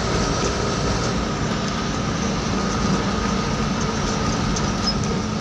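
Steady engine and road noise of a moving vehicle, heard from inside the cab.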